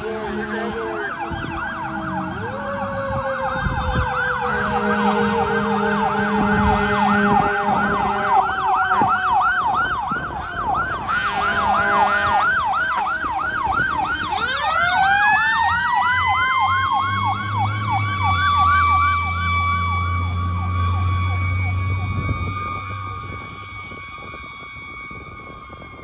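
Fire truck siren on an emergency response: a fast yelp, about four sweeps a second, runs for roughly the first fourteen seconds over a second siren tone slowly falling in pitch, with low air horn blasts near the start. About fourteen seconds in, the siren rises into a steady wail as the truck passes, its engine rumbling under it.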